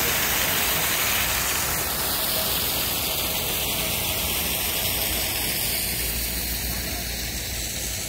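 Water from a floating-faucet fountain pouring into its basin, a steady rushing splash that slowly fades, with a small plane passing overhead.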